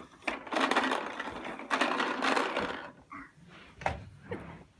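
Toddler's push-toy lawnmower rattling as it is pushed across the floor, in two noisy spells of about a second each, then a few lighter clicks.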